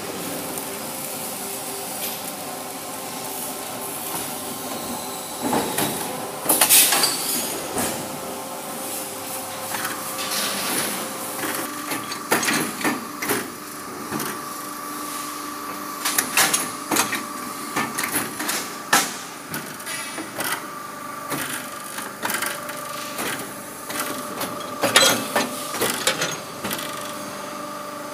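Automatic chain-making machines running: a steady machine hum with several held tones, broken by irregular metallic clanks and clatters as links are gripped and formed.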